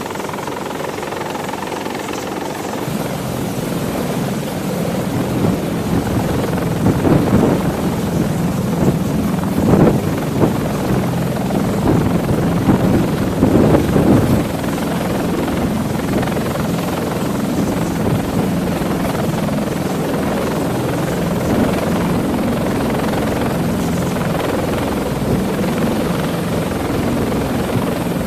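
A CH-53E Super Stallion heavy-lift helicopter's three turboshaft engines and rotors, growing louder as it comes in close, with gusty peaks, then holding steady in a hover as it takes up a slung load.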